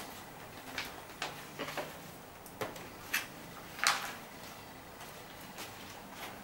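Pages of a picture book being turned and handled: a series of short paper rustles and taps over the first four seconds, the loudest about four seconds in.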